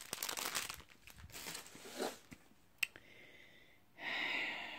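Clear plastic packaging crinkling and rustling as it is handled, with a single sharp click just before three seconds in and a short rustling hiss about four seconds in.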